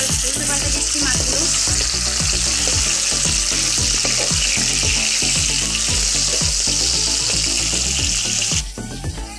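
Fish steaks frying in hot mustard oil in a metal kadai, sizzling loudly and steadily, with a metal spatula scraping and turning them in the pan. The sizzle drops away near the end.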